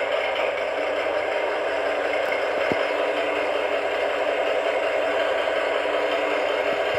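ESU LokSound XL V4.0 sound decoder in a G-scale Piko BR 199 model diesel locomotive, playing a recorded 12 KVD diesel engine at idle through the model's small speaker: a steady, unbroken running sound.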